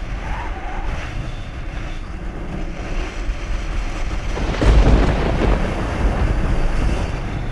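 Wind buffeting the microphone aboard a moving boat, a steady low rumble with a louder gust about four and a half seconds in.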